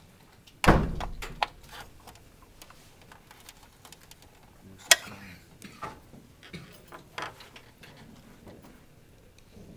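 Knocks and clicks from the CPU heatsink and its plastic shroud being handled inside an open desktop computer case: one heavy knock about a second in, a sharp click near the middle, then a few lighter clicks.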